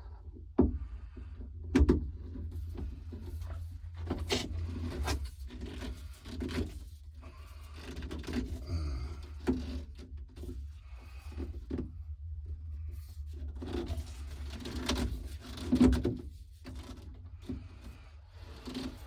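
Pipe and fittings being handled and dry-fitted: scattered knocks, clunks and short scraping noises, the loudest knocks about two seconds in and near the end, over a low steady rumble.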